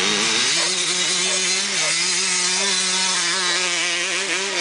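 Vintage dirt bike's engine pulling under load on a grassy climb. It revs up in the first half second, then holds a fairly steady, buzzy note with small wavers in pitch.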